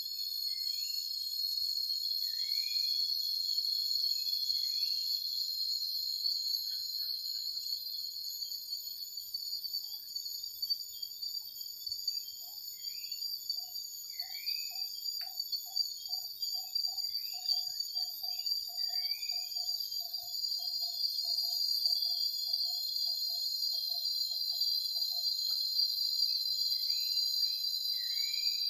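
Night insect chorus: a steady, high-pitched cricket trill, with short chirping calls every few seconds. About halfway in, a lower call repeats in even pulses at about two and a half a second and stops a few seconds before the end.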